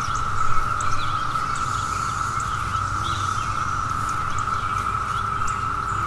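A chorus of cicadas droning in one steady, unbroken buzz, with a few faint bird chirps over it and a low rumble underneath.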